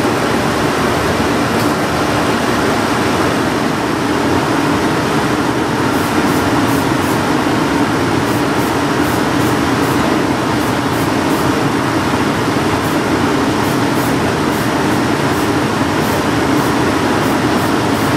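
Cobbler's shoe-finishing machine running steadily, its spinning buffing wheels and brushes making a loud, even whir as a shoe is buffed against them. From about six seconds in, a string of short, high hisses sounds over it.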